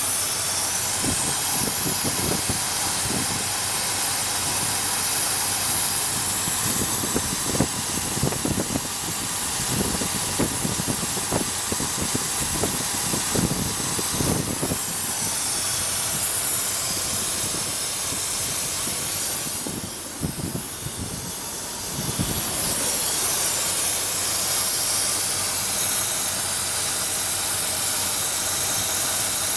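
Engine running on a GEET fuel processor, idling under a steady loud hiss. Uneven low thumps come and go through the first half, and the hiss dips briefly about two-thirds of the way in.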